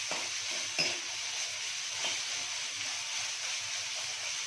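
Chopped onion and green capsicum sizzling in hot oil in a steel wok, with a steady hiss. A steel spatula scrapes and knocks against the pan a few times as the vegetables are stirred.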